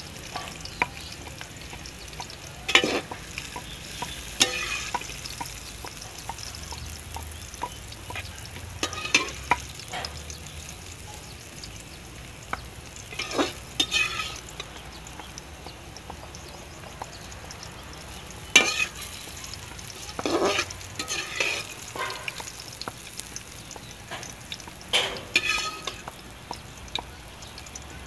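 Metal slotted spoon scraping and knocking against an aluminium karahi every few seconds as fried bitter gourd slices are scooped out of hot ghee, over a steady sizzle of frying.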